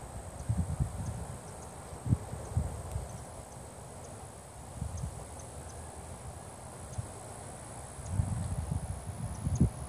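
Wind buffeting the microphone in uneven low thumps and rumbles, strongest about two seconds in and again near the end, over a steady outdoor hiss.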